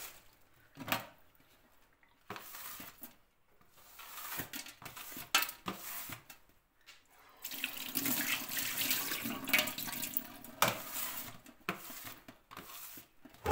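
A rubber squeegee swept in strokes across a wet granite countertop, water swishing under the blade; a single sharp knock about three quarters of the way through.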